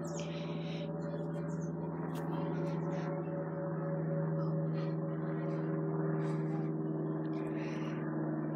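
Steady low drone of an airplane passing overhead, swelling slightly around the middle, with faint bird chirps.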